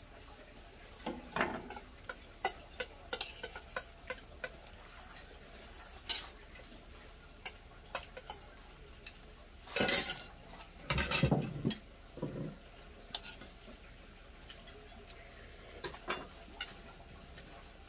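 Metal spoon scraping and clinking against a stainless steel bowl, stirring rice mixed with stir-fried eggplant, in scattered irregular clicks with a louder stretch about ten seconds in.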